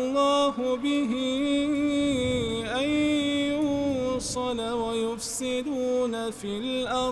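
Quran recitation: one reciter's voice chanting in melodic tajweed style, drawing out long held notes whose pitch wavers and turns, with a few brief sibilant consonants. The phrase ends just before the close.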